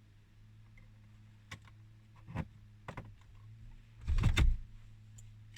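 Several sharp clicks, then a louder knock lasting about half a second about four seconds in, over a steady low hum.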